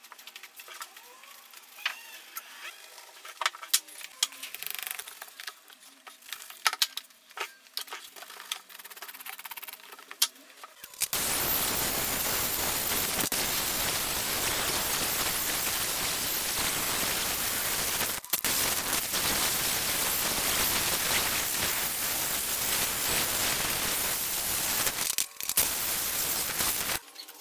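A knife cutting and scraping through a crumb-foam seat pad, giving scattered light clicks. About eleven seconds in, an angle grinder cuts in abruptly and runs steadily as it sands the foam into shape. It drops out briefly twice and stops just before the end.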